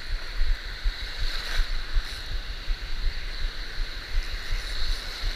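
Surf breaking and washing through shallow water over a reef flat, a steady hiss with irregular low rumbling thumps on the microphone.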